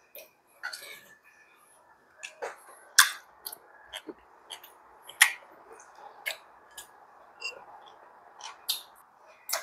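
Metal chopsticks clicking and tapping against the grill plate and dishes, a dozen or so sharp clicks with the loudest about three and five seconds in, over a steady hiss from the electric tabletop grill cooking beef rib meat.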